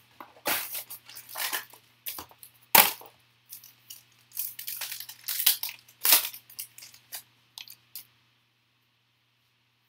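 Trading-card pack wrapper and box packaging being torn open by hand: a run of crinkling, tearing rustles, with one sharp snap about three seconds in, stopping about eight seconds in.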